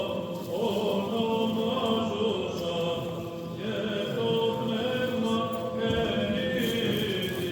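A group of men's voices chanting a Greek Orthodox Byzantine hymn, holding long notes that shift in pitch every second or so.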